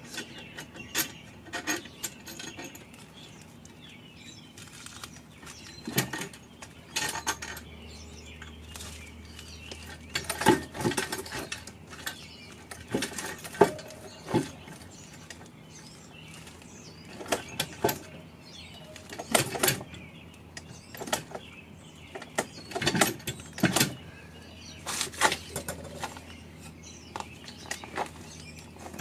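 Metal tools and engine parts clinking and knocking at irregular intervals while the cylinder head bolts of a BMW M54 engine are being worked loose, with a faint low hum underneath.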